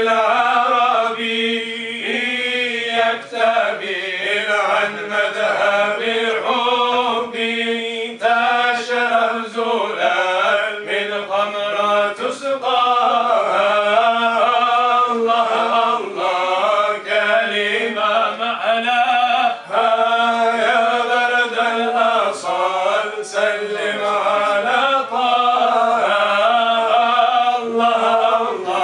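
A group of men chanting devotional verse (inshad) through microphones, over a steady held note underneath.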